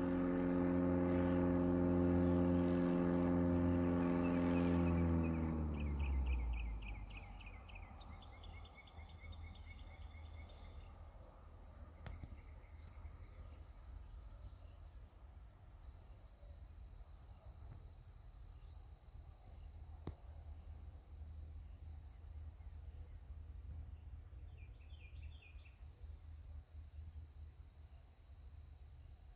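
A loud, steady droning hum, engine-like with several even tones, fades out about six seconds in. It leaves insects chirping and buzzing in a rural evening chorus: a steady high buzz, a fast pulsing trill, and short chirp series now and then.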